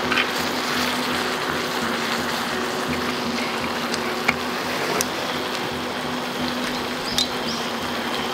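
Gas canister camping stove burner running under a pan of spaghetti simmering in the last of its cooking water, a steady hiss with a low hum. Wooden chopsticks click against the aluminium pan a few times.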